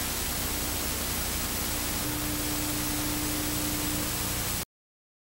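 Hiss of analogue video static over colour bars, with a low steady hum that grows stronger about two seconds in. It cuts off abruptly into silence about four and a half seconds in.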